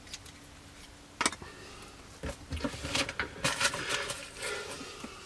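Light clicks and knocks of a plastic model aircraft fuselage being handled and lifted off a cutting mat: one sharp click about a second in, then a cluster of small plastic clicks in the middle.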